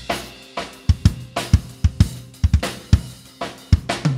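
Acoustic drum kit solo: a quick run of snare strokes and kick drum hits with cymbals ringing.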